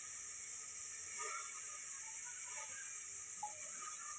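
Faint steady hiss, with a few soft light sounds of chopped onion sliding off a steel plate into a pressure cooker.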